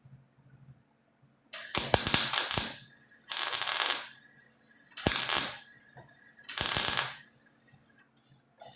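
Welder laying short stitch welds on a sheet-metal patch panel: four separate bursts of welding, each about half a second to a second long, with a faint steady hum between them.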